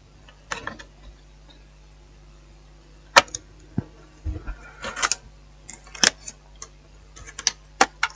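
Scattered sharp clicks and light taps of a DDR2 laptop RAM stick being pressed and snapped into its memory slot, then the keyboard being set back onto the laptop's plastic chassis, over a faint steady hum.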